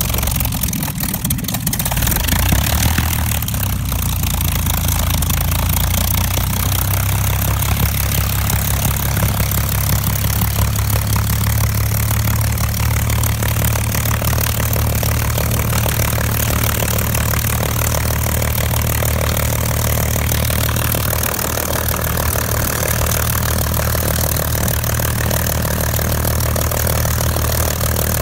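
Spitfire FR XIV's Rolls-Royce Griffon V12 engine catching about two seconds in, then idling steadily on the ground.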